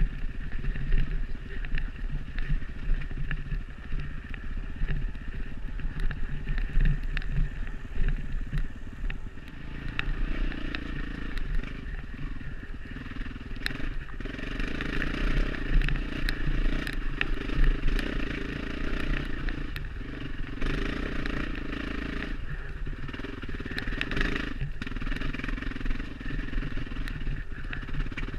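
Off-road dirt bike engine running with shifting throttle while riding, with scattered clicks and clatter over it.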